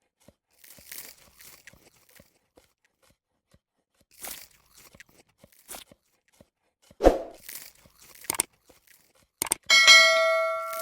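Eating and tableware sounds: soft rustles and crunches, a sharp knock about seven seconds in, then a dish or glass struck and ringing out for about a second and a half near the end.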